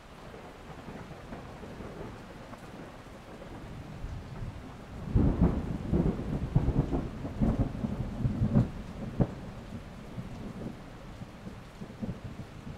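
Steady rain, with a rumble of thunder rolling in about five seconds in. It crackles and swells for a few seconds, then fades back under the rain.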